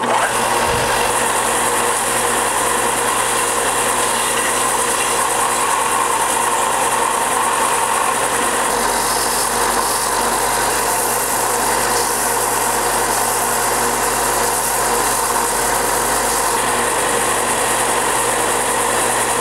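Bench belt sander running steadily while a carved wooden lure body is held against the moving sanding belt, grinding the wood to round off and soften its shape. It is a loud, even motor hum under the hiss of the abrasive belt on wood.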